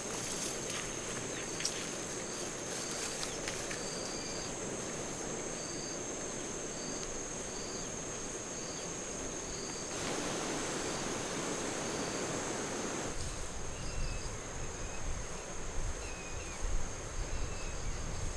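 Outdoor insect chorus: a steady high-pitched insect drone with a short chirp repeating roughly once a second. Near the end, a few gliding bird-like chirps come in over low rumbling and irregular rustles.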